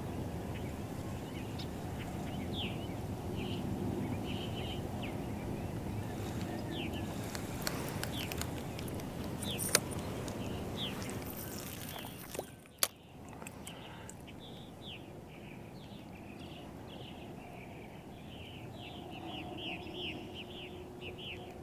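Many short, high bird chirps over a steady low background noise. A sharp click comes about ten seconds in and another about thirteen seconds in, after which the background is quieter and the chirps grow busier toward the end.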